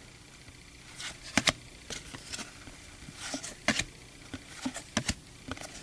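Baseball trading cards being flipped through by hand: a scattering of light, sharp clicks and slides of card stock at irregular intervals.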